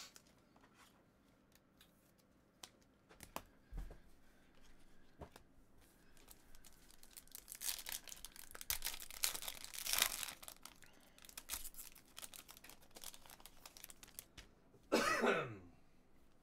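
Foil trading-card pack wrappers being torn open and crinkled, with scattered light clicks of cards being handled. The tearing and crinkling is densest in the middle. Near the end comes a short vocal sound falling in pitch.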